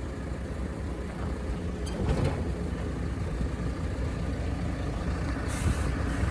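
Engine of a heavy vehicle running steadily, with a short hiss about five and a half seconds in.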